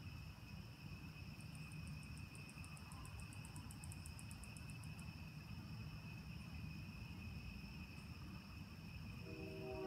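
Night insects, crickets, trilling steadily, with a second insect's rapid pulsing call, about seven pulses a second, from about a second and a half to five seconds in, over a steady low rumble. A held musical chord comes in just before the end.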